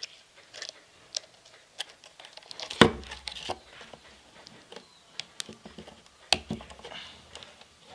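Handling clicks and taps of a digital multimeter's plastic case and its battery while the battery is being fitted into the compartment, with two louder knocks, one about three seconds in and one about six seconds in.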